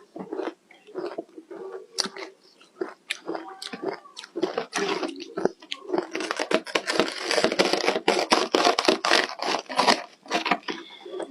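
Ice crunched and chewed between teeth close to the microphone: a run of crisp, irregular crunches that grows dense and rapid from about six to ten seconds in.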